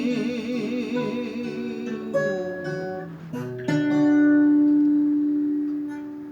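A voice holds the song's last sung note with vibrato for about two seconds over acoustic guitar. Then come a couple of strummed closing chords; the last is left ringing and fades out.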